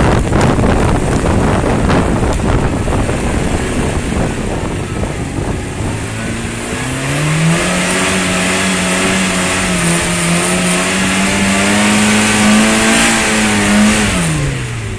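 Small car engine revving hard under load as the car climbs a grassy trial section: the pitch rises about seven seconds in, is held high, then drops near the end as the driver eases off. Wind buffets the microphone in the first few seconds.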